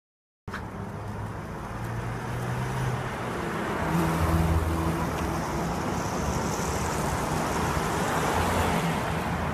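Steady road traffic noise with cars going by, starting suddenly about half a second in.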